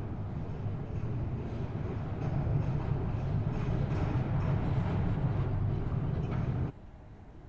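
A steady low rumble that cuts off abruptly near the end.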